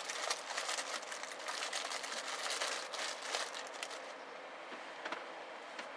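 Rustling and scraping from hands working close to the microphone, dense at first and thinning out after about four seconds, with a couple of light clicks near the end.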